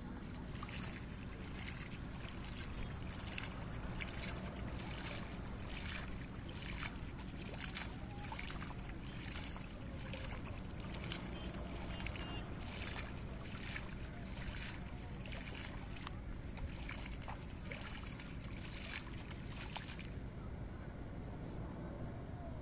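Shallow pond water being splashed by hand, a regular run of short splashes beside a hand net that stops a little before the end, over a steady low rumble.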